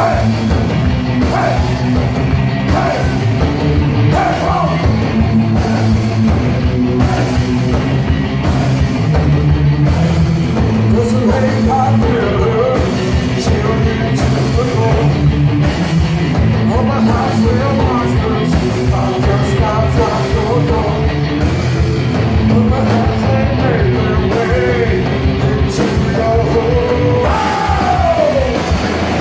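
Live punk-metal band playing loud, with distorted electric guitar, bass, pounding drums and sung and shouted lead vocals; a falling sung note comes near the end. Heard from inside the crowd.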